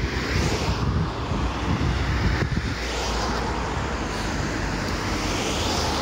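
Road traffic passing, tyre noise swelling and fading several times, with wind rumbling on the microphone.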